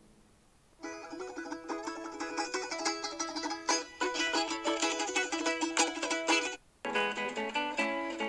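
A plucked string instrument playing a quick run of bright, ringing notes. It starts about a second in and stops after about six seconds. A short phrase from a different instrument follows near the end.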